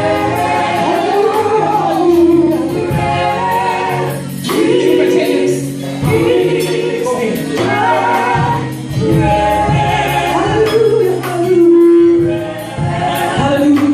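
Gospel choir singing with instrumental accompaniment, held sung phrases over a steady bass line.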